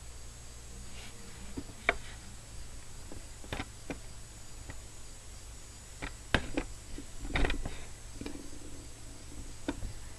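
Scattered light clicks and small knocks from handling at a fly-tying bench, irregular and a little busier in the second half, over a steady low hum.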